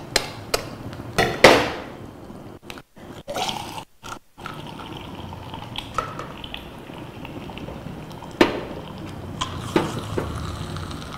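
Sharp metallic clinks and taps of a stainless egg funnel and skewers against the stainless cooking plate of an eggroll (sostel) machine. The loudest comes about a second and a half in, with a few more near the end, over a faint hiss.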